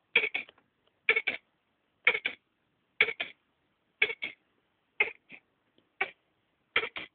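A hedgehog coughing over and over, about once a second, each cough a quick double or triple hack.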